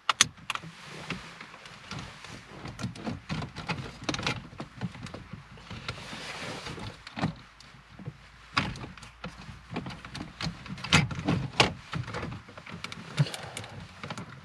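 Irregular plastic clicks and knocks as an aftermarket Android head unit is handled and pushed into a Ford Mondeo mk4's dashboard, over a low rustling. A sharp click comes right at the start, and the loudest knocks come about three quarters of the way through.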